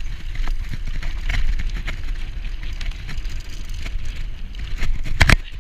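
Mountain bike rolling fast along a dirt singletrack: a steady low rumble with frequent small rattles and clicks from the bike, and a sharp clatter about five seconds in.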